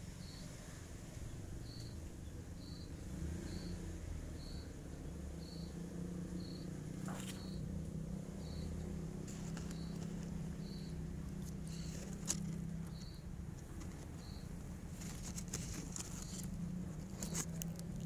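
An insect chirps with a short high note about once a second over a low steady rumble. Crackling rustles of twigs and dry nest grass come about seven seconds in and thicken near the end.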